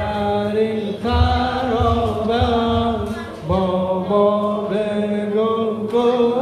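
Voices singing a slow Persian mourning lament (noha), holding long, gliding notes of the refrain melody.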